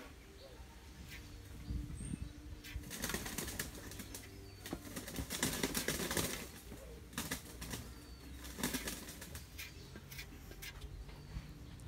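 A filler spreader scraping soft filler across a hard panel in a few separate strokes, the loudest about halfway through.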